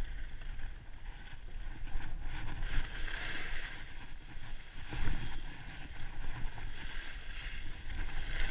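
Wind rumbling on a skier-worn camera's microphone, with the hiss and scrape of skis sliding over snow that swells and fades a few times during the descent.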